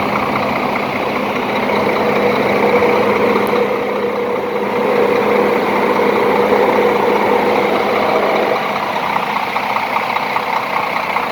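Scania K410 bus's diesel engine idling steadily. About eight and a half seconds in it drops slightly in level and settles into a fast, even pulse.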